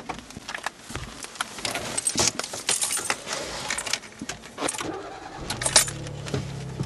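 Sound effects of an animated logo intro: a rapid, uneven run of sharp clicks and clatters, with a low steady hum coming in about five and a half seconds in.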